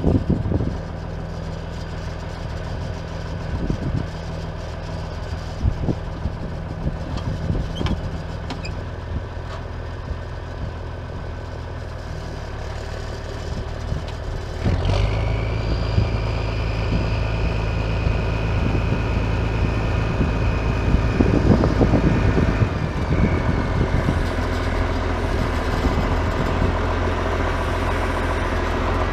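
Farm tractor engine running at idle. About halfway through it steps up and runs louder as the tractor reverses, with a steady high whine that fades out a few seconds later.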